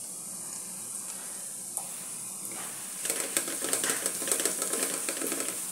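Chopped onions and spices sizzling in hot oil in a metal kadai with a steady hiss; about three seconds in, a wooden spatula starts stirring, scraping and clattering against the pan.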